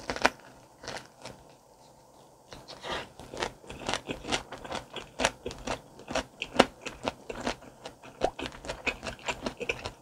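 Close-up chewing of a salmon spring roll in rice paper with crisp raw vegetables. A sharp bite right at the start, a short lull, then steady crisp crunching, several crunches a second.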